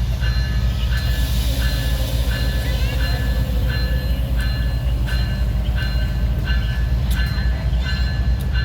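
GE diesel-electric freight locomotives running, a heavy steady low engine drone. Over it a high tone cuts out and resumes at an even beat, about every two-thirds of a second.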